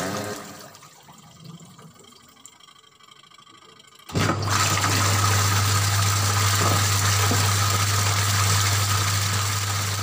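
Aqua washing machine's wash motor starting abruptly about four seconds in, after a quiet pause, and running steadily with a low hum while the pulsator churns water in the tub: the motor, which would not turn before the repair, now spins under load.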